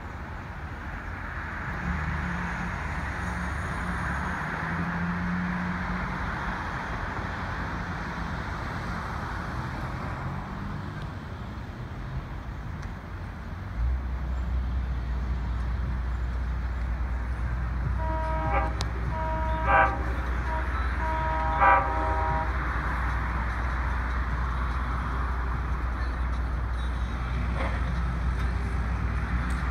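An approaching Long Island Rail Road diesel locomotive: a steady low engine rumble comes in about halfway through, and some seconds later its multi-chime air horn sounds twice, two blasts a second or so apart.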